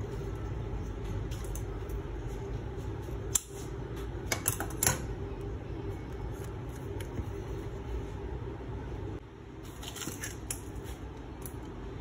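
Handling of a wooden plate rack and its paper tag: scattered sharp clicks and light taps, a cluster about four to five seconds in and another around ten seconds, over a steady low hum.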